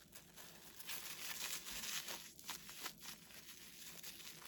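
Rustling and crinkling, a dense run of small crackles.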